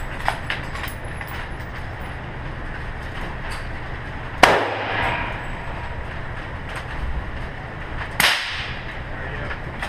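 Two gunshots about four seconds apart, each ringing briefly off the walls of an indoor shooting range, over a steady low hum.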